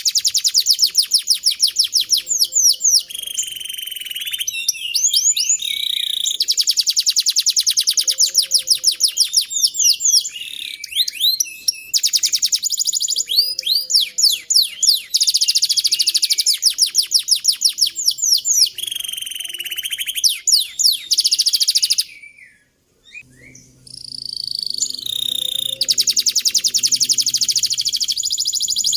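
Domestic canary singing a long continuous song of rapid rolling trills and sliding chirps, the long 'roll' song used to train young canaries. It breaks off briefly about 22 seconds in, and a faint low hum runs under the song after the break.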